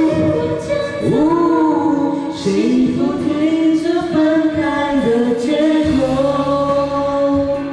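Singing of a Mandarin pop ballad, the voice holding long notes that waver and slide between pitches. A steady low accompanying note comes in about six seconds in.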